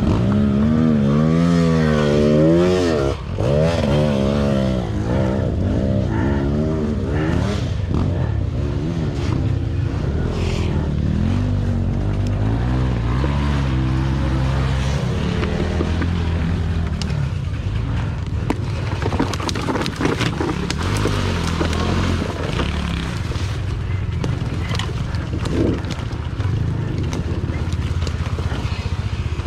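Dirt bike engine revving up and down over and over for the first several seconds, then running lower and steadier, with scraping and knocking over rough forest ground.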